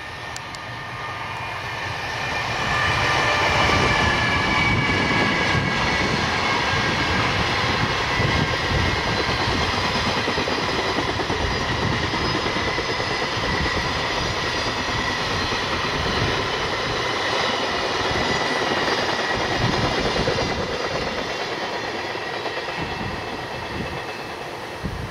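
EF210 electric freight locomotive and its container wagons passing. A steady rolling rumble of wheels on rail builds up in the first few seconds, then eases off near the end as the wagons go by. A high whine, slowly falling in pitch, rides over the rumble during the first half.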